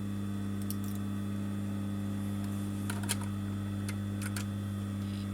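A steady low electrical hum, with a few light clicks and taps scattered through it, once near the start, a couple around the middle and two more later, as small parts are handled at the sewing machine.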